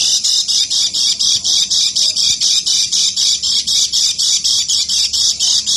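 Kecial kuning white-eye calling in an unbroken run of high, evenly repeated notes, about four a second: the sustained 'ngeker' call that bird-keepers play as training audio.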